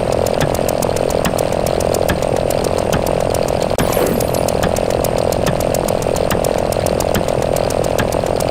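Synthesized counter sound effects running continuously: a steady, buzzing drone with rapid, evenly spaced clicks several times a second, like a number counter ticking over very fast.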